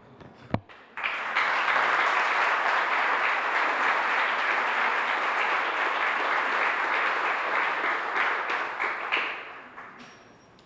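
A couple of small knocks, then an audience applauding for about eight seconds, dying away near the end.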